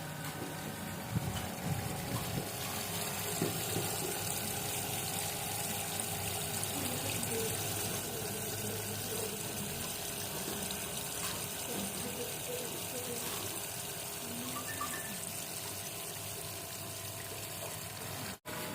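Small DIY aquarium powerhead pump running in water: steady churning and gurgling of water, with a faint steady hum. The sound drops out for an instant near the end.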